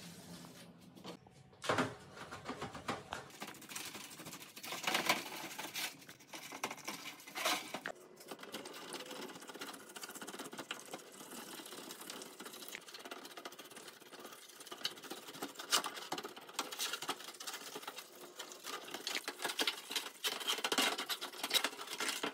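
Rapid, uneven scratching and clicking of hand work on a part, with louder knocks about 2, 5 and 7.5 seconds in.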